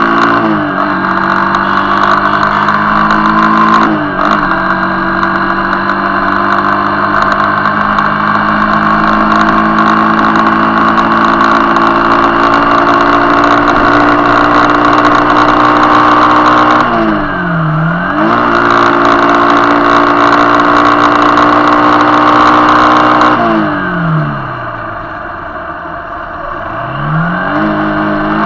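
Motorcycle engine running steadily at road speed. Its pitch dips and climbs back quickly about 17 seconds in as the throttle is eased and reopened. About 24 seconds in it slows for a few seconds, turns quieter, then builds again near the end.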